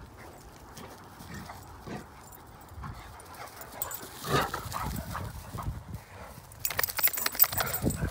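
Great Danes and a German shorthaired pointer playing rough on grass: paws thudding and scuffling, with one short, louder dog vocalisation about four seconds in and a run of rapid sharp crackles near the end.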